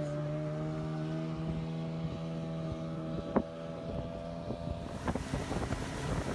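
Outboard motor on a small boat idling with a steady note, with a single sharp knock about three and a half seconds in. About five seconds in the engine opens up and the boat gets under way, with rushing water and wind on the microphone.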